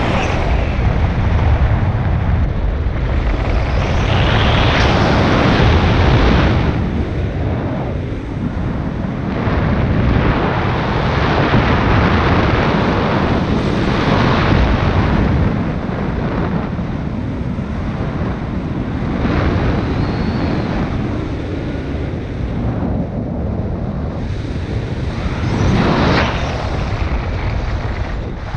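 Paramotor engine running in flight, with wind rushing over the microphone. The noise swells and eases every few seconds.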